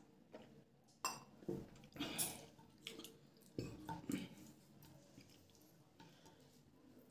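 Hand-eating sounds: a steel tumbler set down with a knock about a second in, then fingers squishing and mixing rice with chicken curry in a few short wet bursts between quieter stretches.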